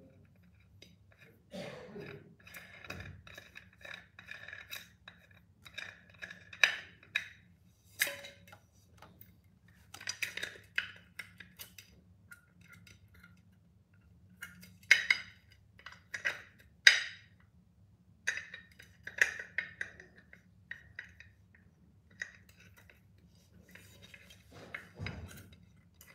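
Scattered clinks and clicks from a tempered glass pot lid with a metal rim being handled while its handle knob is fitted, coming in short irregular bursts with the sharpest clinks about halfway through.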